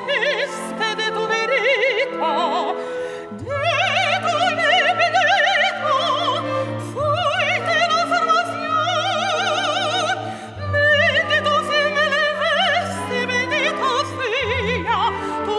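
Operatic soprano singing with a wide vibrato over a symphony orchestra. Sustained low bass notes enter about three and a half seconds in.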